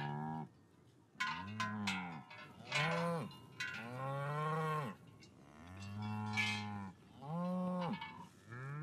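Cows lowing, about six long moos one after another, some overlapping. Their large cowbells clank between the calls.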